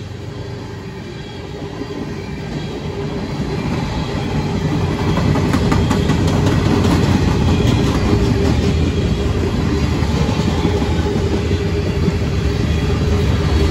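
Freight cars of a CSX mixed freight train rolling past: a continuous rumble of steel wheels on rail with clickety-clack over the rail joints. It grows louder over the first few seconds, then holds steady.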